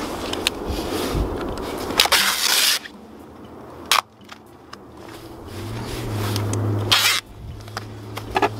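Strong adhesive tape being pulled off the roll in segments, with plastic sheeting crinkling. Two loud ripping bursts come about two and seven seconds in, with a sharp click near four seconds. A steady low hum comes in about halfway through.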